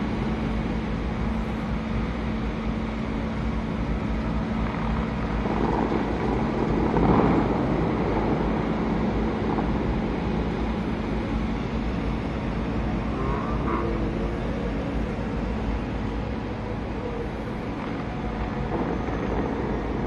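Steady rushing of wind and distant city traffic, with a faint steady hum, swelling briefly about seven seconds in.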